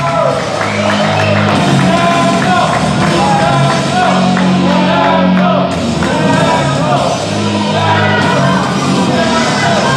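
Loud rock entrance music with singing, with shouting voices over it.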